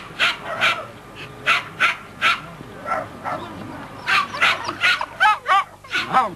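Terriers barking repeatedly in short, sharp barks, turning into several high, pitch-bending yips near the end.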